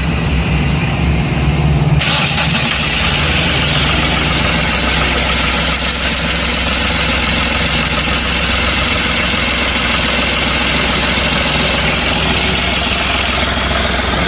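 Ashok Leyland Dost light truck's engine cranks for about two seconds, then catches and settles into a steady idle.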